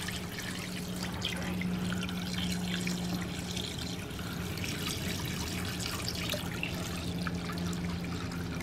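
Vinegar pouring in a steady stream from a plastic gallon jug into a plastic tub, splashing and trickling over submerged steel plates, with a steady low hum underneath.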